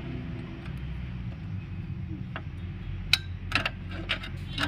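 A few sharp metallic clicks and taps from hand tools working on a drum-brake assembly's shoe hardware, most of them in the second half, over a steady low hum.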